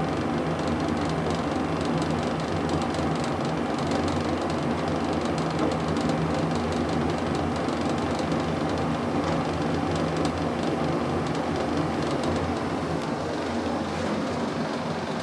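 1920s Otis elevator car travelling between floors: a steady hum and rumble from the car and its machinery, easing slightly near the end as it slows for a landing.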